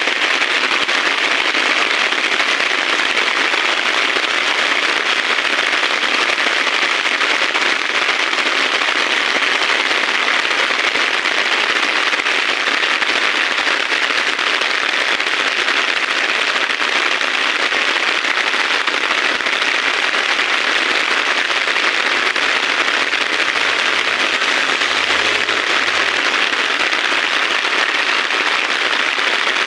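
Heavy rain falling steadily, a dense crackling patter with no let-up.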